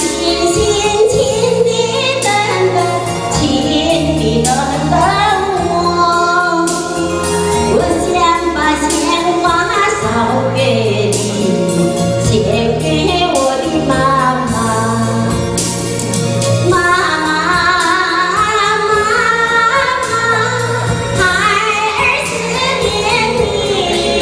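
A woman singing a Mandarin song into a handheld microphone over instrumental accompaniment with a steady beat.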